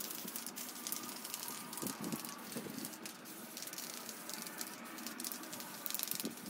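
Aerosol can of leather colour renew spray hissing as it is sprayed onto a leather couch, with a fine crackle running through the hiss.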